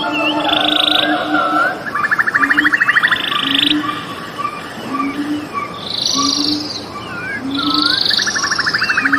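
Frogs calling with short low croaks about once a second, alongside fast pulsed trills, with birds chirping in quick sweeping notes over them.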